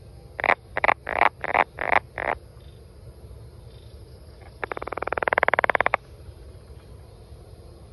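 Brown banana frog calling: a quick series of six short croaks, then a few seconds later one fast rattling trill about a second long that rises slightly in pitch.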